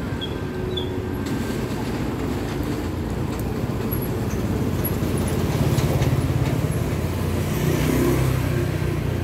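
Street traffic: a motor vehicle engine running nearby, growing louder about halfway through.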